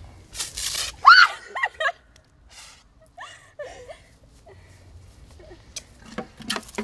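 Girls shrieking and squealing in a play fight, with short noisy bursts in between, the loudest a high rising squeal about a second in.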